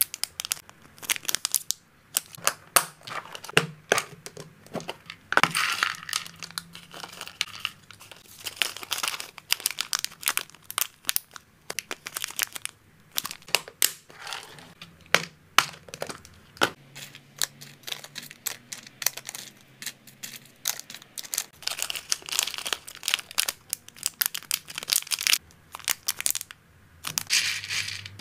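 Crinkling of small clear zip-lock plastic bags being handled, with sharp clicks and taps from plastic food storage boxes and their lids, coming in quick irregular bursts and easing off for a few seconds about two-thirds of the way through.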